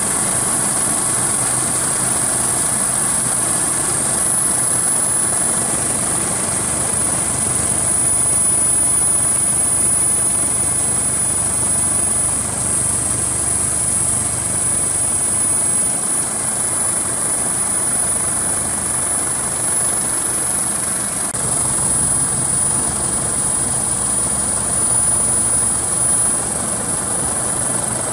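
Helicopter engine and rotor noise, a steady drone with a continuous high-pitched turbine whine over it.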